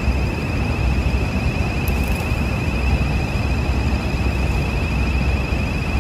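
Wind rumbling on the microphone, with a thin, steady, slightly wavering high-pitched whine above it; no clear bird call stands out.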